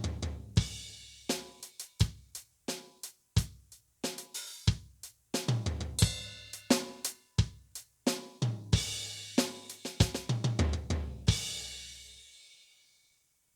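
Alesis electronic drum pad triggering drum-kit sounds: a played groove of kick, snare and tom hits with hi-hat and cymbals, ending on a cymbal crash that rings out and fades away.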